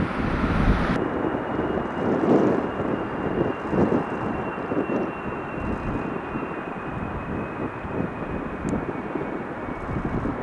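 Jet airliner engines running, a rumbling roar with a faint high whine that slowly falls in pitch.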